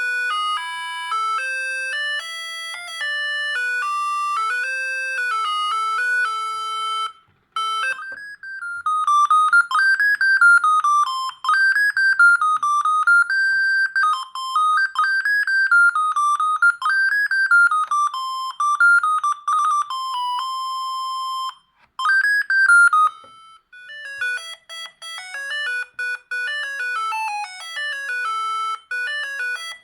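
A Siemens S45 mobile phone playing its built-in ringtones, one electronic melody after another, one note at a time. A stepped tune breaks off about seven seconds in. A warbling tune of fast-pulsed notes rising and falling follows. After a short gap near twenty-two seconds, a quicker tune begins.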